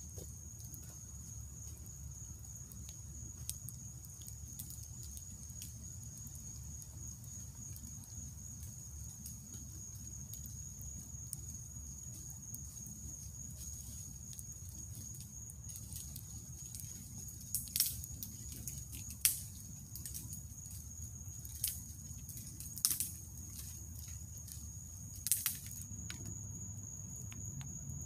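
Night insects trilling in one steady, high, unbroken tone over a low steady rumble, while a wood campfire's burning embers give a handful of sharp pops and crackles, mostly in the second half.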